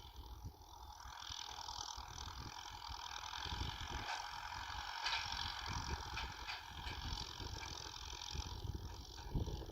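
Kubota M6040 SU tractor ploughing: the engine runs under an uneven low rumble with irregular knocks, and a broad hiss of rattling and scraping builds about a second in and holds steady.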